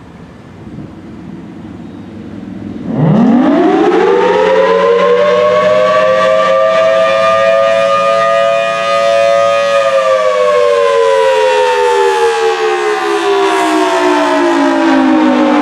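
Federal Signal Thunderbolt 1000T tornado siren starting its test: a low hum, then about three seconds in the siren winds up in a fast rising wail to a held tone, and from about ten seconds the pitch slowly falls.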